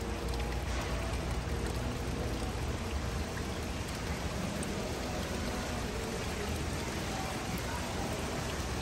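A steady rush of water.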